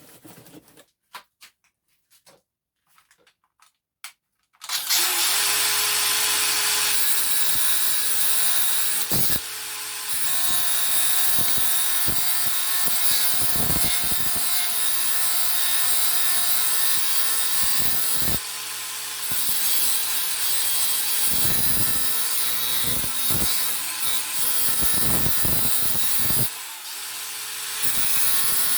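A few faint handling clicks, then about four and a half seconds in, a DeWalt DCG412N 18 V cordless angle grinder starts. It runs continuously with a 115 mm cutting disc grinding the edge of a steel mower blade, its pitch and level shifting a few times as the load changes.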